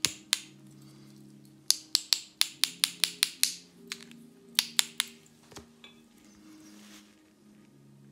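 One paintbrush tapped against the handle of another to flick watercolour spatters onto the paper: sharp clicks, a quick run of about nine, then three more a second later, over soft background music.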